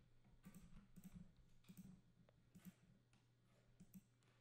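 Near silence with faint, scattered clicks from a computer mouse and keyboard as the desk is worked, over a faint low hum.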